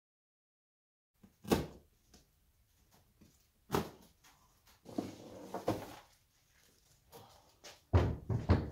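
A few sharp knocks and clunks of hard objects being handled, spaced a couple of seconds apart. Near the end come two or three heavier, deeper thuds.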